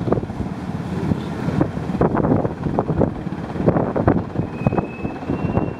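Wind buffeting the microphone over the steady rumble of ships underway alongside each other at sea, with irregular gusty knocks throughout and a faint thin whistling tone near the end.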